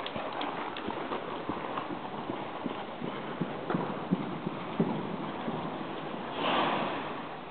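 A horse's hoofbeats as it trots on the sand footing of an indoor arena, an uneven series of soft knocks. A short rush of noise comes near the end.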